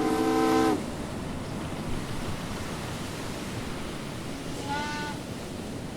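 Steamboat's steam whistle blowing, a steady chord-like tone that cuts off under a second in, followed by a steady rush of water noise. A shorter, fainter, higher whistle toot sounds about five seconds in.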